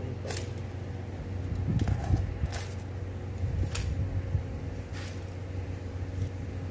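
A steady low mechanical hum, with about five short light clicks and taps as a stainless steel grill grate and a tape measure are handled.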